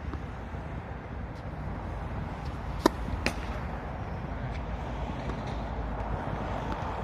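Two sharp tennis ball impacts about half a second apart, the first the louder, over a steady low rumble.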